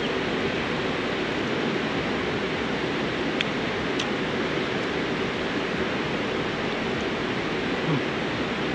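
Mountain stream rushing steadily, a constant hiss of running water, with a couple of faint clicks around the middle.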